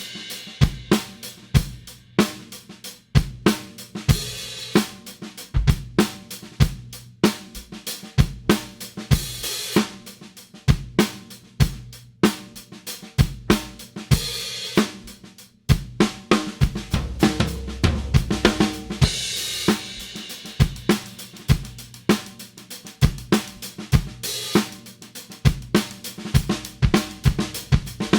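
Drum kit played in a steady groove, with kick and snare under 16-inch Istanbul Mehmet Nostalgia hi-hats. The cymbal wash swells at intervals.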